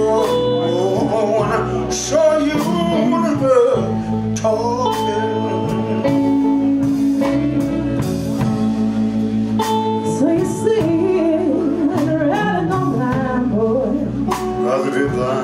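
Live blues band playing, with a voice singing over guitar and held instrumental chords; the singing comes in phrases at the start and again about two-thirds of the way through.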